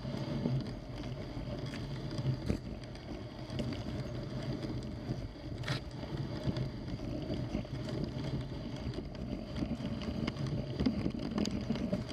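Dog sled moving through deep fresh snow: a steady rushing noise from the runners and the moving sled, with one sharp tick a little before six seconds in.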